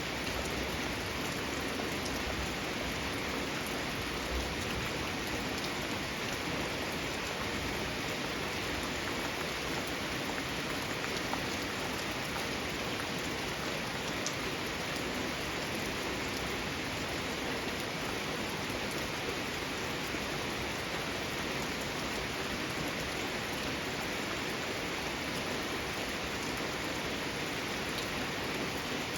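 Steady rain falling, an even hiss with an occasional single drop tapping out of it.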